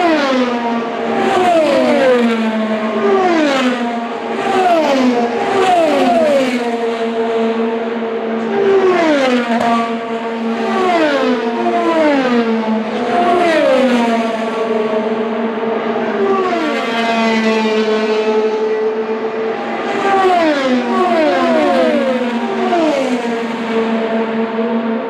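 IndyCars with 2.2-litre twin-turbocharged V6 engines passing at speed one after another, each engine note dropping in pitch as the car goes by, with a steady hum underneath.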